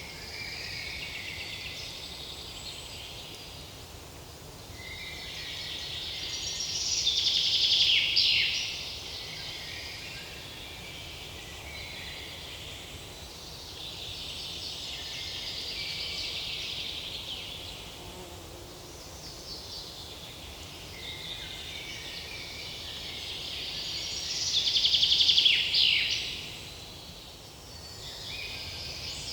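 Insects buzzing in a forest: a fast-pulsed, high buzz that swells and fades in waves, rising to two loud peaks that each end in a falling sweep.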